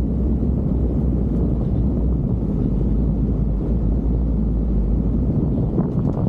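Steady rumble of a car driving on a dirt road, heard through wind buffeting on a roof-mounted microphone, with a few short knocks near the end.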